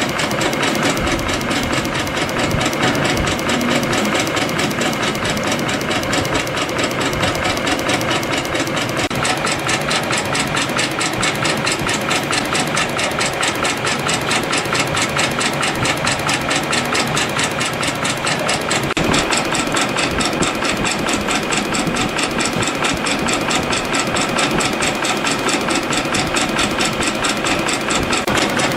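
YHM CF-310 CNC compression spring coiling machine running continuously, feeding and coiling 0.2 mm wire into variable-diameter compression springs with a rapid, even rhythm of mechanical strokes.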